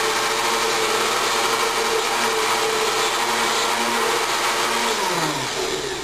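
Countertop blender running loud and steady while blending a protein shake, then switched off about five seconds in, its motor winding down with a falling pitch.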